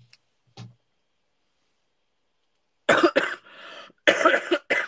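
A woman coughing: two sharp coughs about three seconds in, a breath, then a longer fit of several coughs near the end.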